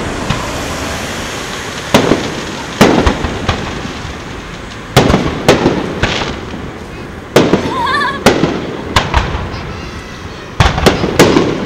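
Aerial firework shells bursting in the sky: about ten sharp booms, some single and some in quick clusters, each trailing off in an echoing rumble.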